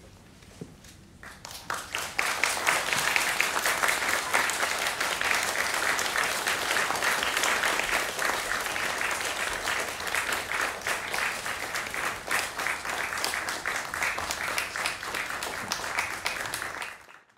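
Audience applauding. The applause starts about a second and a half in, holds steady, and cuts off suddenly near the end.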